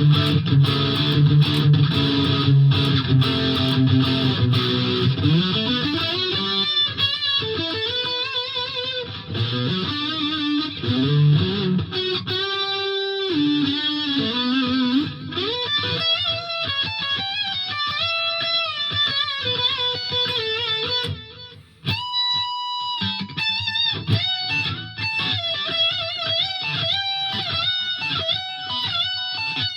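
Gibson Les Paul Classic electric guitar fitted with a Seymour Duncan SH-1 humbucker, played through a Fender Mustang LT50 amp on a lead tone. It opens with a few seconds of chords, then moves to single-note lead lines with string bends. There is a short break about three quarters through, followed by a held note.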